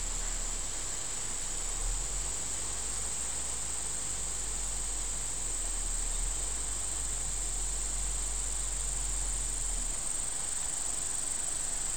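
Steady, unbroken high-pitched insect chorus, crickets or cicadas, with a low rumble underneath.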